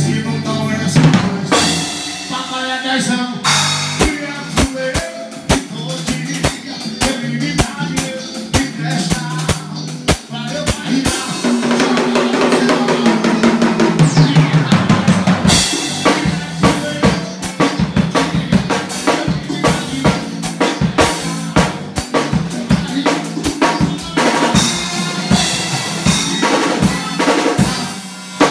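Drum kit played fast, with rapid bass-drum and snare strokes and cymbal wash. A sustained pitched tone sounds under the drumming for a few seconds near the middle.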